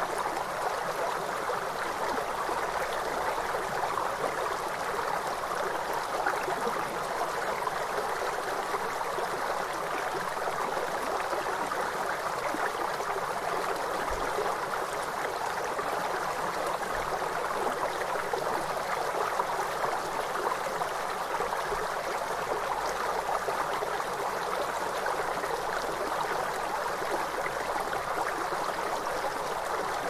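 River water flowing over rocks: a steady, even rushing with no change in level.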